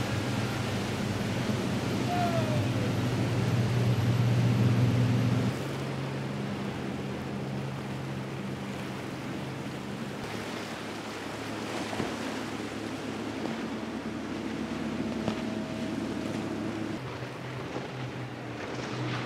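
Motorboat engines droning steadily as boats run past at speed, over the rush of waves and wake and wind on the microphone. The drone drops suddenly about five and a half seconds in and grows louder again near the end.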